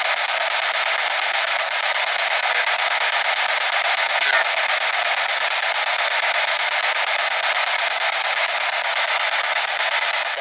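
P-SB7 spirit box sweeping radio channels: a steady hiss of radio static from its small speaker, with brief faint fragments that the investigator takes for spirit voices answering.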